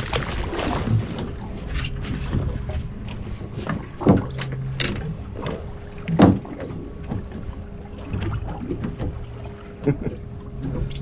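Outboard motors idling steadily on a boat at sea, with wind rumble on the microphone and a few sharp knocks, the loudest about four and six seconds in.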